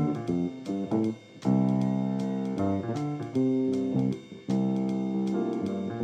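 Instrumental music from a piano and bass duo: the piano plays sustained chords over a bass line, the phrases broken by two short gaps.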